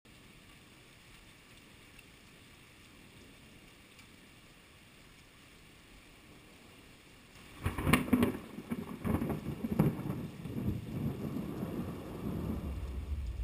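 Faint hiss, then about seven and a half seconds in a thunderclap: several sharp cracks followed by a low rolling rumble of thunder.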